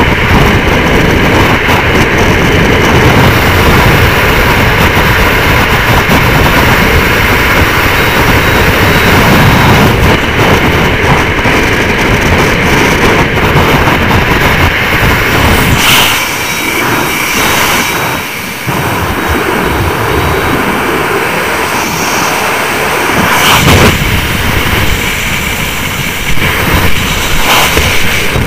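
Freefall wind rushing and buffeting over a helmet-mounted camera's microphone, loud and steady; the deep rumble eases a little over halfway through.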